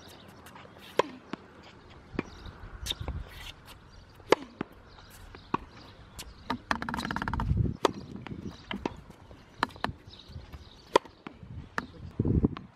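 Tennis ball struck by racket and bouncing on a hard court: sharp, separate knocks about a second apart, with lighter scuffing steps between them. A longer, louder rumbling noise comes about seven seconds in.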